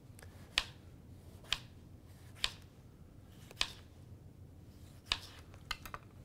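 Kitchen knife slicing a tomato, each cut ending in a sharp tap of the blade on a white plastic cutting board, about once a second, with a few quicker taps near the end.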